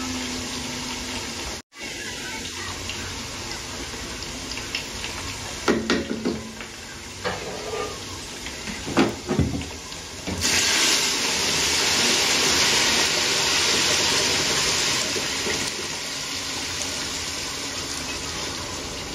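Sliced onions bubbling in liquid in a large aluminium stockpot, a steady hiss of simmering. A few knocks come around the middle, and the hiss grows louder about ten seconds in.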